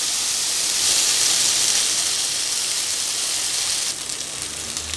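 Marinated tandoori chicken pieces sizzling in a little oil in a frying pan on low heat. The sizzle gets quieter about four seconds in.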